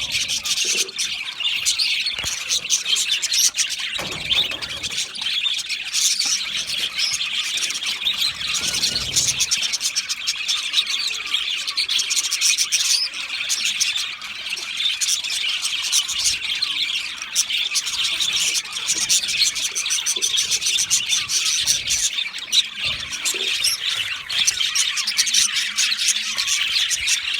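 A flock of budgerigars in an aviary chirping and chattering continuously, many birds' calls overlapping into a dense, steady high-pitched twitter.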